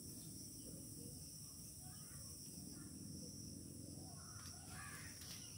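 Faint background room tone: a low hum with a steady high-pitched whine, and a few faint chirps about two seconds in and again near the end.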